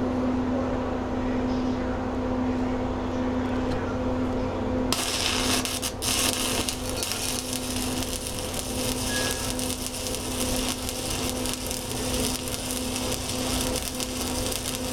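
A welding arc struck about five seconds in on an overhead fill pass, then crackling and hissing steadily as the bead is laid. A steady low hum runs underneath throughout.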